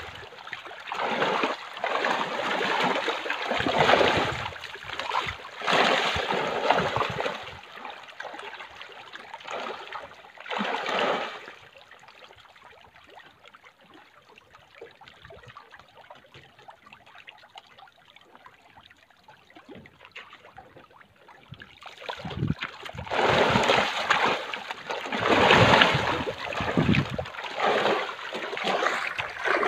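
Fish splashing and thrashing at the surface of a fish-farm cage, churning the water in loud, irregular bursts. The splashing dies down for about ten seconds in the middle, then starts hard again.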